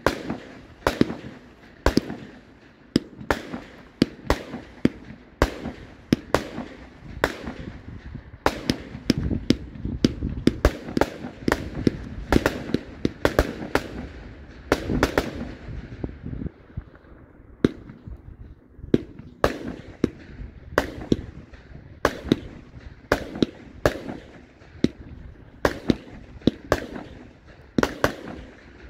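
Fireworks firing shot after shot: a steady series of sharp bangs, roughly two a second, with a denser stretch of hissing and crackle in the middle.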